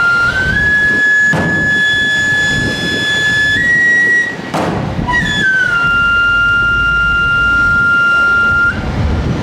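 Chirimía (a Guatemalan shawm) playing long held high notes: the pitch steps up twice, breaks off briefly midway, then steps back down to a long held note. Two single drum strokes fall about a second in and near the middle.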